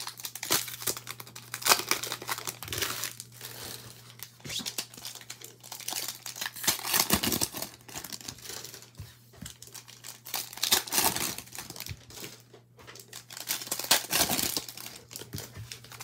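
Foil wrappers of Panini Prizm trading-card packs being handled and torn open, crinkling and crackling in irregular bursts, with a faint steady low hum underneath.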